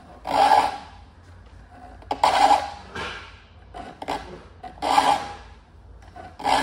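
Saw file rasping across the teeth of a hand saw clamped in a saw vise, sharpening it crosscut: about six separate short strokes at uneven intervals.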